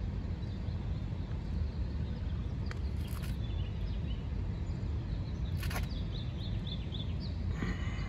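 Outdoor background noise: a steady low rumble, with two brief rustles and, in the second half, a quick run of faint high chirps from a small bird.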